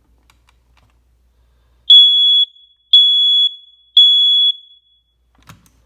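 Smoke alarm sounding on a button test: three loud, high-pitched beeps about a second apart, each about half a second long, in the temporal-three evacuation pattern.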